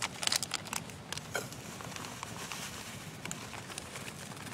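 Dry cornbread mix being poured from its bag into a mixing bowl: a soft steady pattering hiss, with a few sharp clicks of the bag and bowl in the first second or so.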